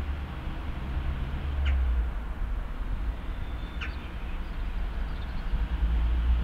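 Outdoor ambience: a steady low rumble that rises and falls, with two short, quickly falling bird chirps about two and four seconds in.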